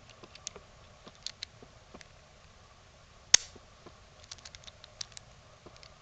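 Master Lock 1534D combination padlock being handled: light scattered clicks and rattles of its metal shackle and lettered dials, with one sharp metallic click a little past halfway.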